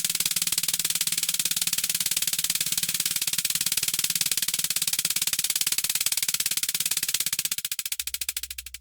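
Jackhammer hammering in a rapid, even stream of strikes, fading out near the end.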